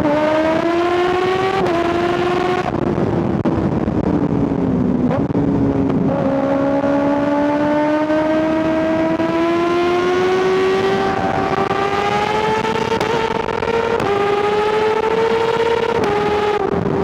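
2025 Kawasaki ZX-6R's 636 cc inline-four revving hard under acceleration. The pitch climbs, falls for a couple of seconds as the throttle comes off, then climbs steadily again with a few short drops, and cuts out briefly near the end.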